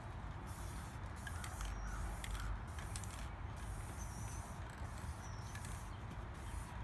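Aerosol spray-paint can hissing in repeated short bursts with brief pauses between, as red paint is sprayed onto a car door.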